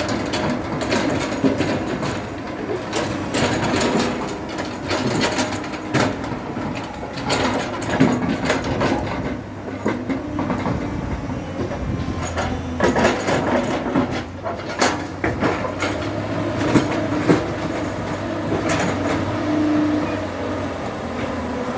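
JCB 3DX backhoe loader's diesel engine running steadily under work, with frequent sharp metal clanks and knocks from the machine's arms and bucket.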